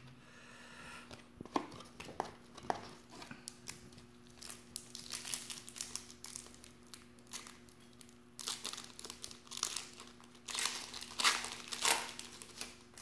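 Trading card pack wrapper crinkling and tearing as it is torn open by hand. It starts with scattered crackles and builds to louder bursts in the second half, the loudest near the end as the wrapper is pulled apart.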